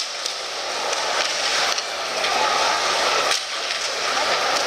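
Hockey arena crowd din during live play, a steady mix of spectator chatter and rink noise, with a couple of sharp clicks.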